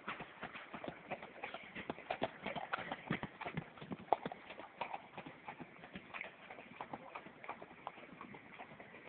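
Tennessee Walking Horse stallion's hooves clip-clopping in a quick, uneven run of hoofbeats that thins out and grows fainter over the last few seconds.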